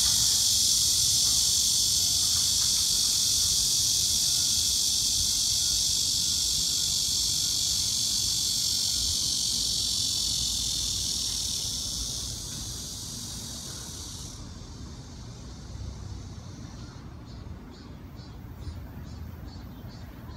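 Cicadas buzzing in a loud, steady chorus that fades after about twelve seconds and stops about fourteen seconds in, leaving faint high pulsing over a low background rumble.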